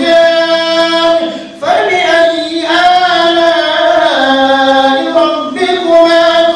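A man reciting the Qur'an aloud into a microphone as imam of a congregational prayer, in a melodic chant of long held notes, with a brief pause for breath about one and a half seconds in.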